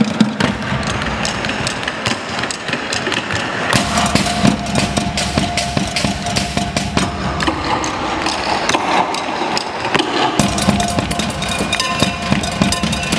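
Fast tap-dance footwork on portable wooden tap boards, with bucket drums and a drum kit, making a dense, continuous run of sharp taps and hits. The low drum hits grow stronger from about four seconds in to about ten seconds in.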